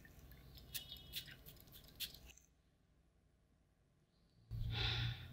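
Faint clicks and taps from handling a glass Chanel Coco Eau de Parfum bottle, then a dead gap of total silence, then a short breathy sniff near the end.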